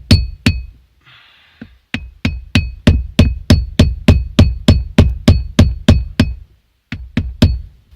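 Hammer blows driving a whittled wooden shift knob, cut from a 2x4, down onto a car's metal shifter stick. The blows come about three a second, each with a short ring, with a brief pause about a second in and another near the end.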